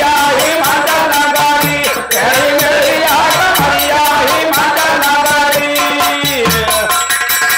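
Men singing a nagada birha folk song in a long melodic line, over a quick steady beat of nagada drums struck with sticks and small hand cymbals.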